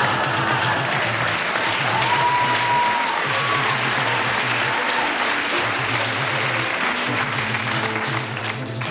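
Studio audience applauding, with music playing underneath; the applause thins out near the end.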